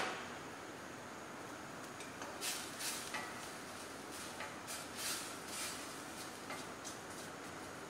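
Wooden spoon stirring a stainless steel saucepan of mushrooms and onions cooking in a little liquid, giving irregular scrapes and knocks against the pan over a steady hiss. A sharp click comes at the very start.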